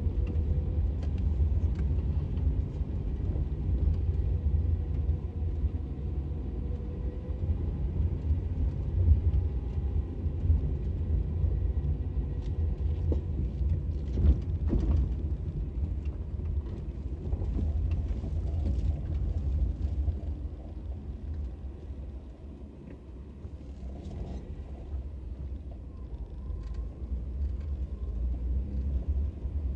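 A car's engine and tyre rumble heard from inside the cabin while driving, a steady low drone that eases off a little about two-thirds of the way through.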